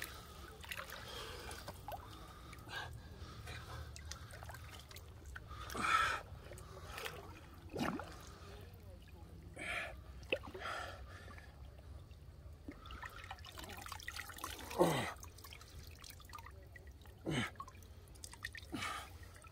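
Water dripping and trickling, broken by scattered light splashes and small plops, several of which slide quickly downward in pitch.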